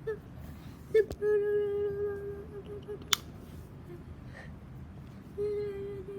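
Noisy ceiling fan running: a low rumble under a steady whine that fades in and out, with a few clicks, the loudest a sharp click about three seconds in.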